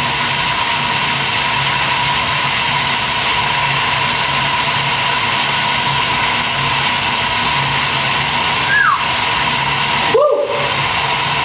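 Tap water running steadily into a sink, a loud even rush.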